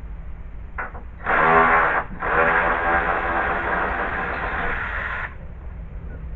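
A power saw running in two goes: a short burst, then about three seconds of cutting that stops suddenly.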